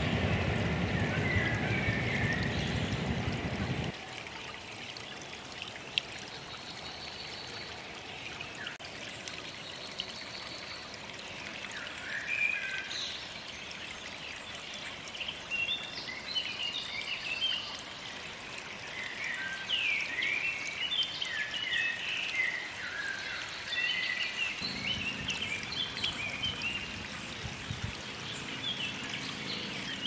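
Small songbirds chirping and trilling in woodland, many short high phrases from about twelve seconds in. A low rushing noise fills the first four seconds and cuts off suddenly, and a faint low hum comes in near the end.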